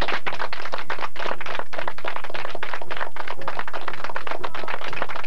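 Several people clapping their hands, a dense run of irregular claps.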